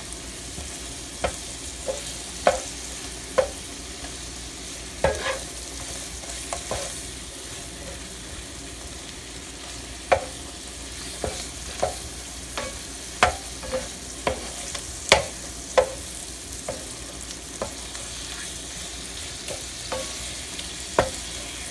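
Shrimp frying in melted butter, a steady sizzle, while a wooden spatula stirs them, tapping and scraping against the pan at irregular moments, about twenty knocks in all.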